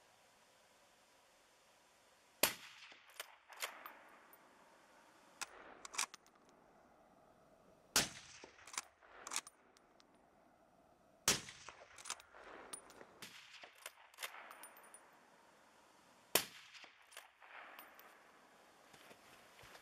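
Four suppressed rifle shots, a Blaser fitted with an ATEC silencer, spaced several seconds apart, each followed by a short echo tail. Quieter metallic clicks and clacks between the shots as the bolt is worked.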